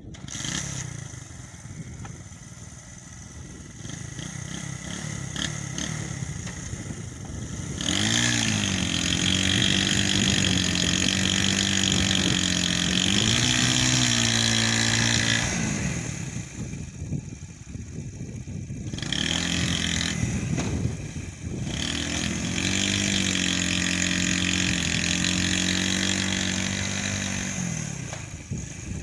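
Small Chinese motorcycle engine revving up and held at high revs under heavy load, straining to pull a heavily loaded cart. It runs quieter for the first several seconds, revs up about 8 s in, drops back briefly, and revs up again about 20 s in.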